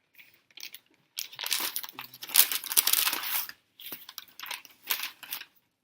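Paper fast-food packaging crinkling and rustling as it is handled to get a fry out: a long, busy stretch of rustling from about a second in, then a few shorter crinkles.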